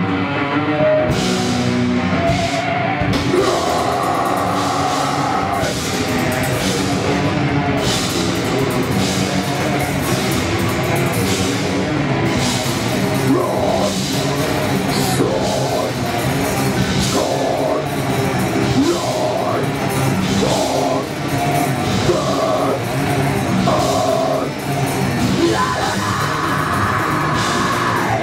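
Heavy metal band playing live at full volume: distorted electric guitars and bass over a drum kit with crashing cymbals, and a vocalist.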